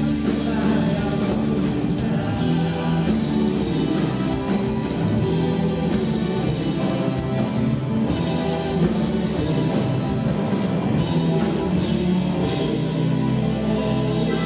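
Live band playing a song, with drum kit, electric guitars, bass and keyboard under male lead vocals.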